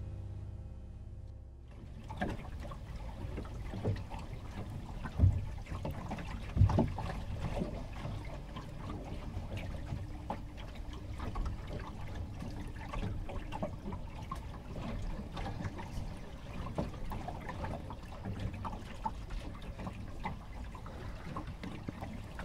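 Water sloshing and lapping against a boat's hull, an irregular patter of small splashes with a couple of louder splashes a few seconds in. A music tail fades out at the start.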